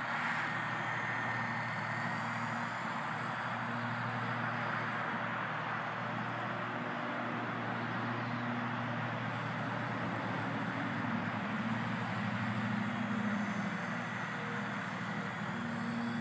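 Steady rushing of light wind outdoors, with a faint low hum that swells and fades several times.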